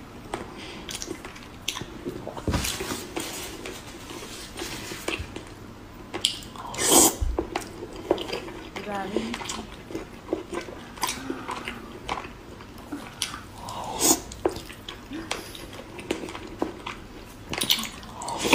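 Mukbang eating sounds of fatty braised pork belly: wet lip smacks, chewing and squelching bites, as a scatter of short sharp clicks with the loudest about 7 and 14 seconds in.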